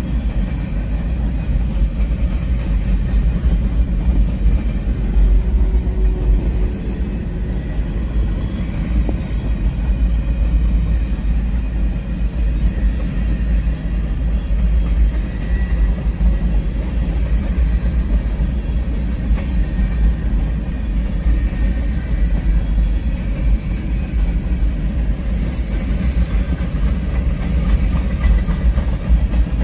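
Freight train of four-bay hopper cars rolling past, a steady low rumble.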